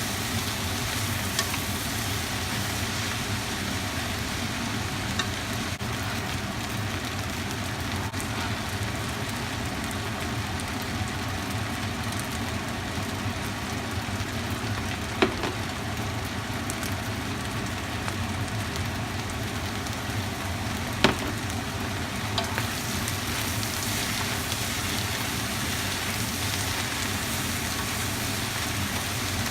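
Food sizzling steadily in a hot pan as a stir-fry cooks, with two sharp clicks in the second half.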